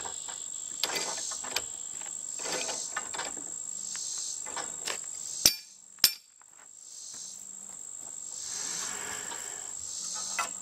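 Metal clinks and clanks from tools and galvanized steel pipe being handled, with two loud sharp clanks about halfway through, over a steady high trill of insects.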